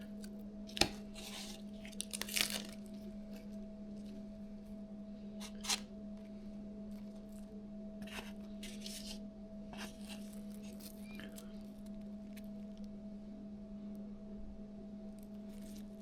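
A few short rustles and clicks of food being handled while a sandwich is put together, over a steady low hum.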